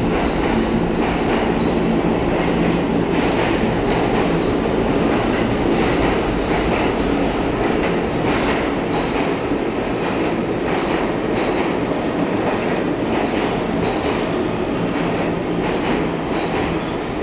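New York City Subway A train pulling out of the station and running past along the platform. A steady motor hum weakens after about eight seconds, while the steel wheels clatter over the rail joints in a clickety-clack that grows busier as the train gathers speed.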